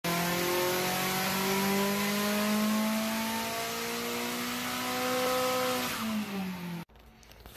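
Car engine running under steady acceleration, its pitch climbing slowly and then dropping a step near the end, before cutting off suddenly about seven seconds in.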